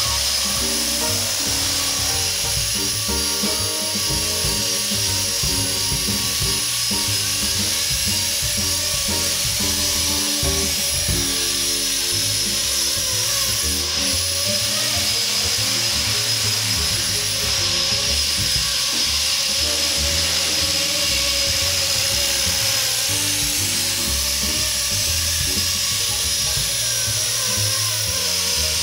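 Background music over the steady high-pitched whine of a Blade SR electric RC helicopter's motor and spinning rotors in flight.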